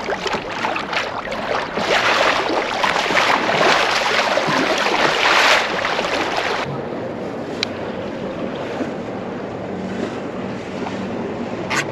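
Wind buffeting the microphone and choppy water splashing against the hull of a moving fishing kayak. About six and a half seconds in the sound drops to a softer, steady wash of wind and water, with a couple of sharp clicks.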